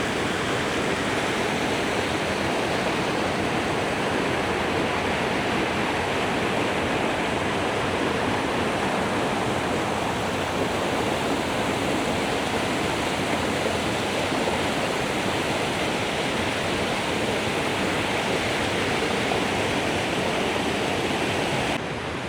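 Loud, steady rush of a river cascading down a rocky waterfall, white water pouring and swirling without pause.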